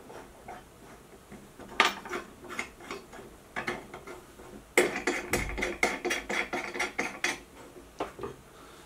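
Guidescope ring adjustment screws being turned by hand to realign the guidescope, giving ratchet-like clicking: a sharp click about two seconds in, scattered clicks, then a quick run at about five clicks a second and a couple more near the end.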